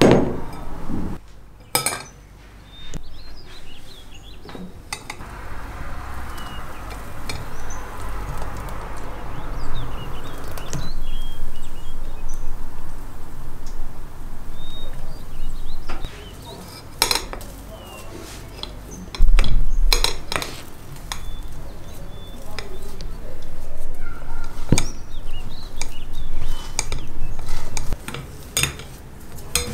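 Clinks and knocks of a glass bowl and a metal sieve being set down and handled, with the soft sound of thick blended beetroot pulp being poured out. One loud low thump comes about two-thirds of the way through.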